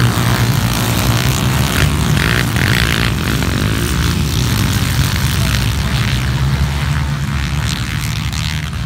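A pack of underbone-class motorcycles racing on a flat track, their engines running together at high revs in a loud, steady drone. It fades a little toward the end as the pack moves away.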